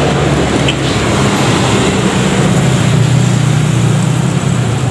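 Steady road traffic noise from vehicles passing on the main road, with a low engine drone under the tyre noise.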